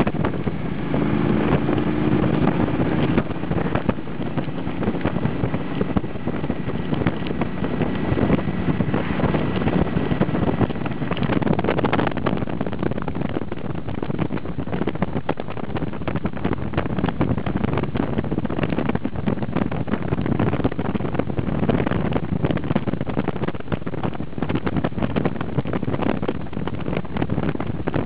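Wind rushing over the microphone on a moving motorcycle, with the bike's engine running steadily underneath.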